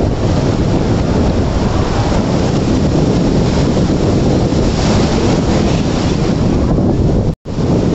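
Sea surf washing in and swirling around concrete pier pilings, a steady rushing with heavy wind buffeting on the microphone. The sound cuts out for an instant near the end.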